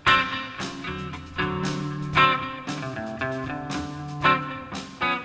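Live blues band playing an instrumental groove led by guitar. Rhythmic chords ride over a bass line, with sharp accented hits roughly once a second.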